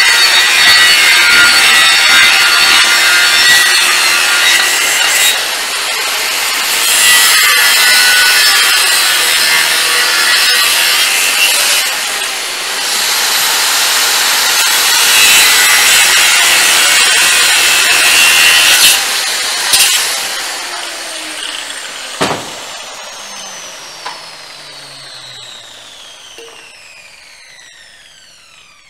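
Grinder's abrasive disc grinding steel with a loud, harsh rasp that eases off briefly a few times. About twenty seconds in, the tool is switched off and its high whine falls and fades as the disc spins down, with a couple of knocks.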